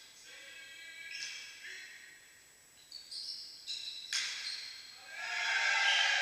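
Volleyball rally on a sports-hall floor: several sharp ball hits, the loudest about four seconds in, each followed by high squeaks from players' shoes; from about five seconds in the squeaking gets louder and denser.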